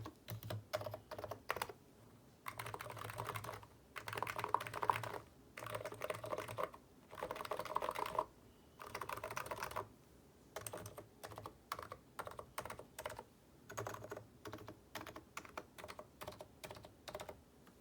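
Typing on a NiZ Plum Micro 82 keyboard with 45 g electrocapacitive switches, blank PBT keycaps, a steel plate and a plastic case: fast runs of keystrokes alternate with slower single key presses, and the typing stops shortly before the end.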